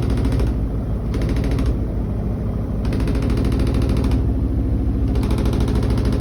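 Koenic KWM 8212 A INV top-loading washing machine running, over a steady low hum, with its lid rattling in a fast, even clatter. The lid does not close properly.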